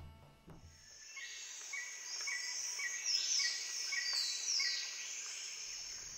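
Jungle ambience sound effect: birds and insects chirping, with a short call repeating about twice a second and higher falling calls above it. It fades in about a second in.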